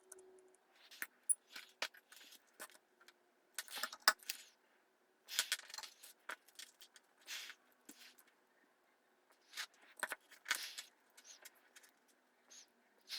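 Irregular short scrapes, clicks and rattles of small hard parts and tools being handled, in uneven bursts with brief pauses between them.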